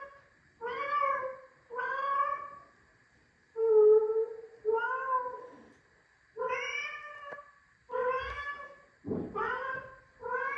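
Recorded cat meowing played through a TV soundbar: a steady series of about eight separate meows, roughly one a second, with a lower, rougher meow near the end.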